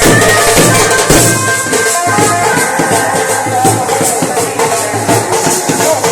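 Indian wedding band (band baaja) playing loud, fast music: drums and rattling cymbal-like percussion beating a dense rhythm under a wind-instrument melody.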